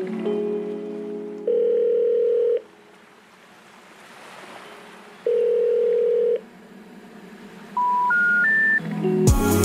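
Telephone tones on the soundtrack. A ringing tone as heard in a phone's earpiece sounds twice, then three short beeps rise in steps, the special information tones that come before a 'number not in service' message. Music plays before the tones, and loud music with a heavy beat cuts back in near the end.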